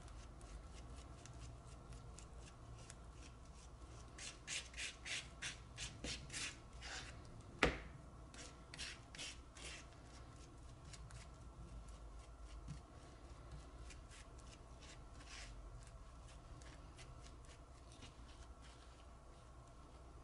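Thick, softened frozen acrylic paint being scraped and smeared across a surface: short wet scraping strokes, coming quickly about four seconds in, with one sharp click near the middle.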